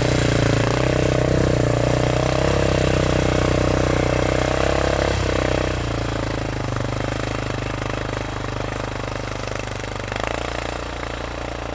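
Motorcycle engine running at a steady speed. About halfway through its note drops and it grows quieter.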